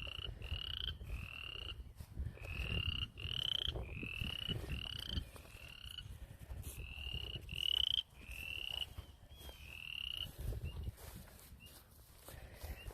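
Frogs calling: a run of short rising peeps, about two a second, that thin out to a few faint chirps near the end. Low wind rumble on the microphone underneath.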